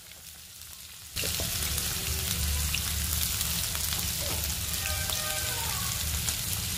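Chopped onions sizzling in hot oil in a frying pan with green chillies and whole spices. The sizzle starts suddenly about a second in and then stays steady.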